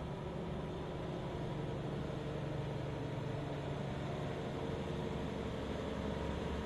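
Hi-rail water truck's diesel engine running steadily as the truck rolls slowly along the railroad track, its hum growing gently louder as it draws near.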